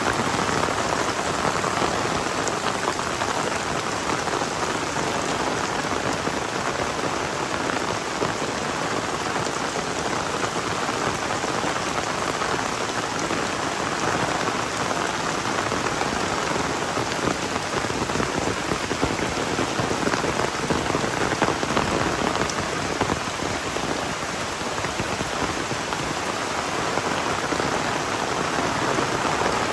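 Heavy rain falling steadily, a dense, even hiss of drops with no let-up.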